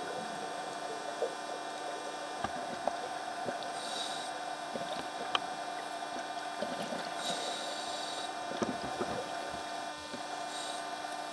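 Underwater sound heard through a camcorder's dive housing: a steady hum with scattered small clicks, and a short hiss about every three seconds, typical of a scuba diver breathing through a regulator.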